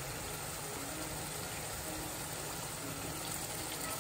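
Keema curry simmering in a saucepan: a steady, faint hiss and bubble with no distinct knocks.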